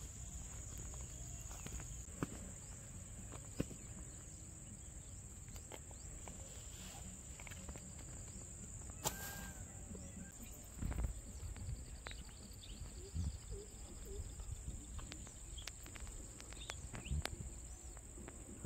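Outdoor ambience: a steady, high-pitched insect drone throughout, with scattered short chirping calls, a few sharp clicks and a low rumble.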